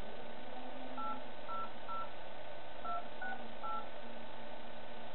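Touch-tone telephone keypad being dialed: six short two-tone beeps, in two quick groups of three about a second apart.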